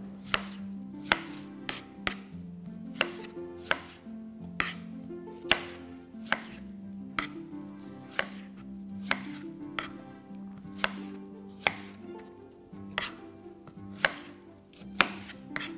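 A knife slicing strawberries on a plastic cutting board: sharp taps of the blade hitting the board, a little more than one a second at an unhurried, slightly uneven pace.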